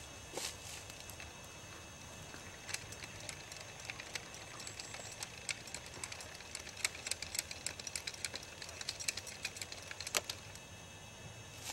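A couple of footsteps on leaf litter, then a run of faint, irregular small clicks and rustles as hands work at the steel frame of a homemade chainsaw mill at the end of a log.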